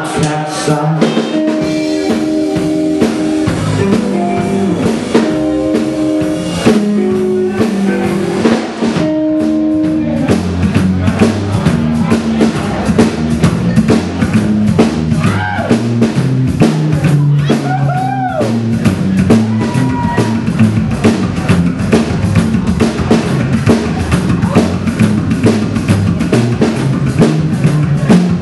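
Live rockabilly band playing an instrumental break: electric guitar over an upright double bass and a drum kit. Held guitar chords come first, then about ten seconds in a steady, busy drum beat drives under a walking bass line.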